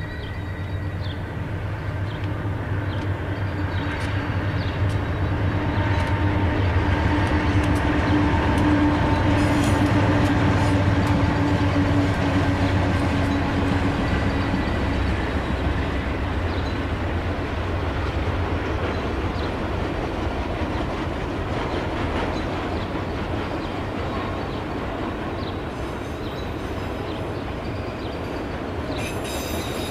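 N scale model grain train running past: metal wheels rolling on the track with a steady low hum, growing louder to a peak about a third of the way in, then a long string of grain hopper cars rolling by.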